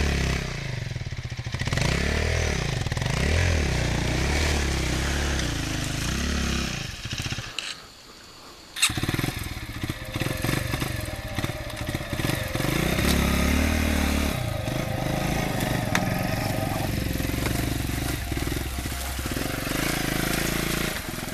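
Blata 125 enduro bike's engine revving up and down in low-speed bursts as it claws along a muddy creek bed, with water splashing under the front wheel. About seven seconds in it drops away for a second or so, then comes back abruptly and runs on more steadily.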